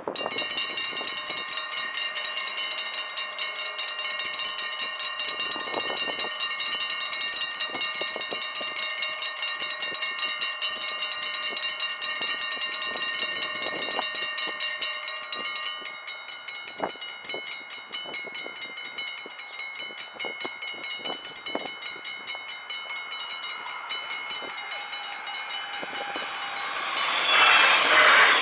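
Level-crossing warning bells ringing rapidly and steadily as the barriers come down, then continuing more quietly from about halfway through once the barriers are closed. Near the end an electric passenger train passes over the crossing with a loud rush.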